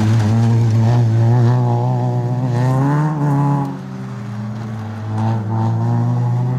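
Citroën Saxo rally car's four-cylinder engine revving hard, its pitch climbing for the first three seconds or so, then dropping sharply as the driver lifts, and rising again near the end as it accelerates away.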